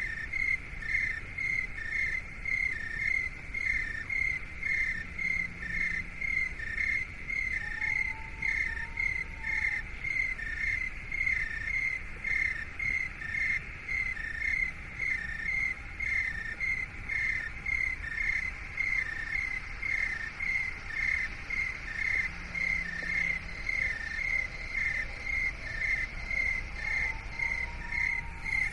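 Crickets chirping in a steady, even rhythm of about two chirps a second, used as a tinnitus-masking sound. A faint short whistle-like tone rises and falls twice.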